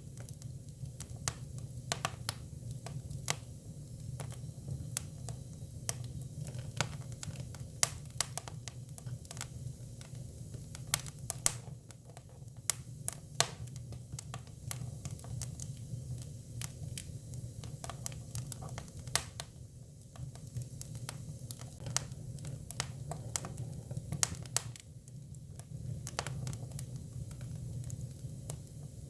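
Hinoki cypress firewood burning, crackling with irregular sharp pops and snaps over a steady low rumble.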